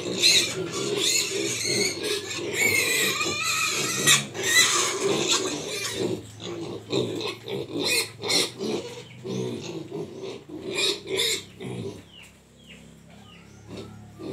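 A pen of piglets grunting and squealing. Loud, high squeals come thick over steady grunting for the first half. The rest is quieter grunts with short squeaks.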